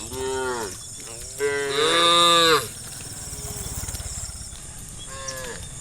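Cattle mooing: a short moo at the start, then a louder, longer moo about a second and a half in that rises and falls, and a faint short call near the end.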